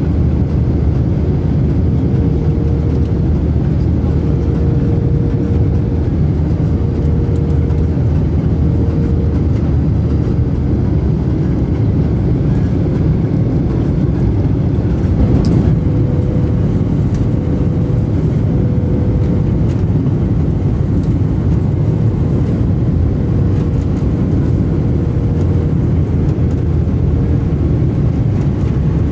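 Steady engine and rushing-air noise inside an airliner cabin in flight, with a faint wavering hum.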